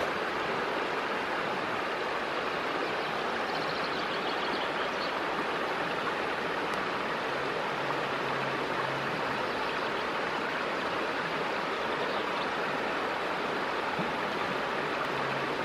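Steady rushing and burbling of a shallow, stony river flowing.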